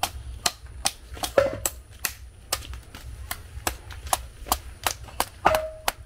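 Machete chopping into the husk of a young green coconut held in the hand, quick sharp strikes about three a second, trimming the husk away to open the nut.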